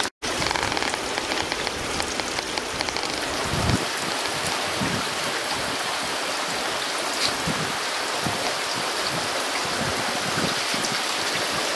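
Heavy rain falling steadily: a dense, even hiss of the downpour on the ground and vegetation.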